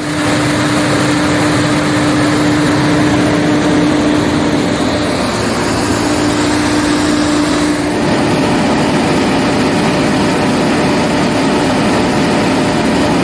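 Batch grain dryer running, its fan blowing loud and steady with a constant hum under the rush of air. About eight seconds in the hum fades and the noise shifts slightly.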